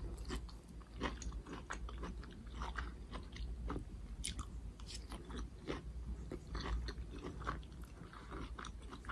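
Close-miked chewing of instant noodles with vegetables: irregular soft wet mouth clicks and small crunches.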